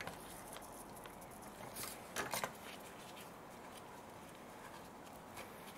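A quick cluster of light clicks and taps about two seconds in, from an open-end spanner and hands working the new air-conditioning pressure sensor on its refrigerant line, over a faint steady background.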